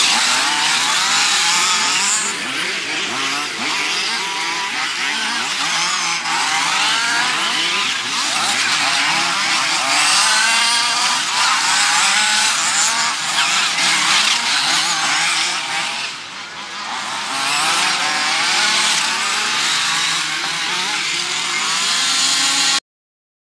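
Several radio-controlled off-road buggies' small two-stroke engines racing, high-pitched and revving up and down over and over as the cars accelerate, brake and pass. The sound cuts off abruptly near the end.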